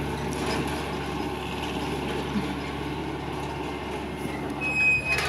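Tractor engine idling steadily, with a short knock near the end.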